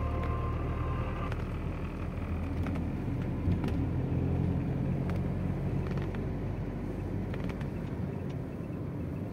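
Road and engine noise inside a moving car's cabin: a steady low rumble, with a few faint clicks and a short knock about three and a half seconds in.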